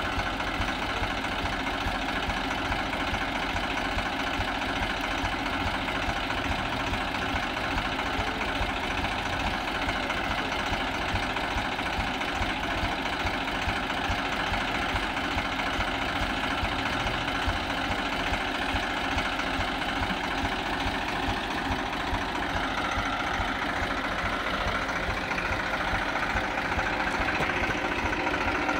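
Swaraj 735 FE tractor's three-cylinder diesel engine idling steadily. About three-quarters of the way through its sound shifts, and it grows a little louder near the end.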